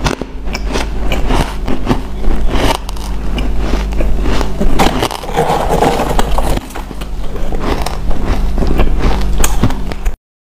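Close-miked chewing of powdery white ice: a run of crisp crunches, thickest about halfway through, over a low steady hum. The sound drops out abruptly just before the end.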